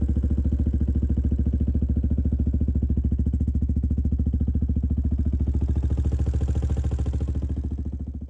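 Yamaha WR125X's single-cylinder four-stroke engine idling steadily with an even pulse, fading out near the end.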